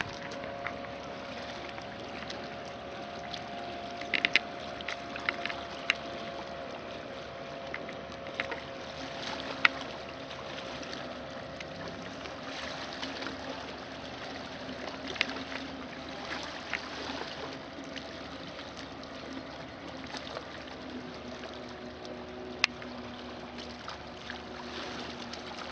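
Lakeshore ambience: a steady hiss of breeze and water with scattered faint clicks, under the faint steady drone of a distant motorboat engine. A lower drone takes over about halfway through.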